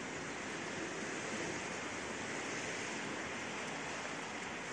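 Steady outdoor hiss of rain and wind.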